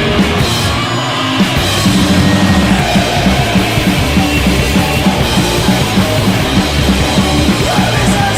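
Punk rock band playing in a rehearsal recording, with drum kit, guitar and bass. It settles into a louder, fast, driving beat about two seconds in.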